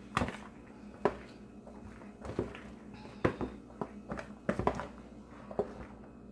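Wooden spoon stirring hot elbow macaroni in a plastic mixing bowl, knocking and tapping against the bowl at irregular moments.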